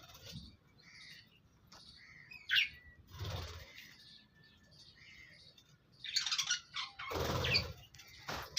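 Budgerigars chirping and chattering in short calls, with louder bursts of noise, likely fluttering, about three seconds in and again near the end.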